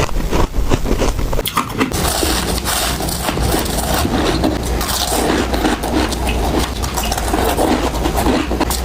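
Soft, powdery humidifier frost ice being crunched up close to the microphone: a dense, continuous crackling and crunching.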